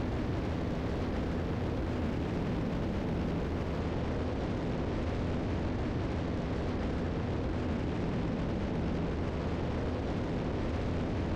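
Steady drone of a Piper Seneca III's two turbocharged six-cylinder engines and propellers in cruise descent, heard inside the cabin.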